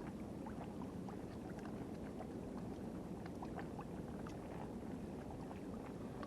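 Seawater washing and lapping steadily against the shoreline, with scattered small ticks and clicks.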